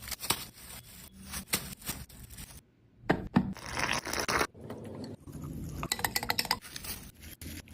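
Kitchen food-preparation sounds: utensils scraping and clinking, with many sharp knocks and clicks. There is a brief near-silent break about two and a half seconds in, and a quick run of crackling clicks around six seconds in.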